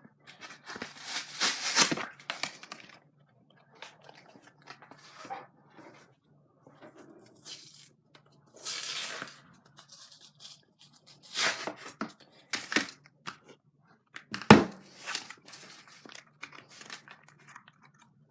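Hands working at the stiff plastic and cardboard packaging of a trading-card box: irregular crinkling, scraping and tearing, with a sharp snap or knock near the end.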